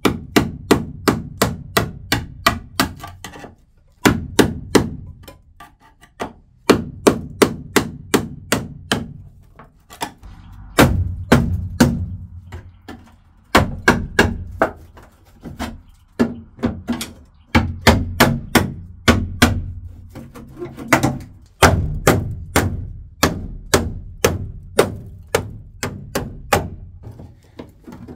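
Hammer blows on a screwdriver used as a chisel, driven into the spot-welded seam of a Jeep Cherokee XJ's rusty steel cargo floor to split the welds. Sharp metal strikes come in quick runs of about three a second, with short pauses between runs.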